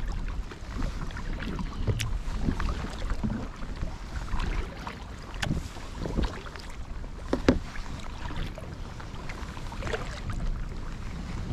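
Kayak paddles dipping and pulling through the water, with irregular splashes and drips, over a low rumble of wind on the microphone.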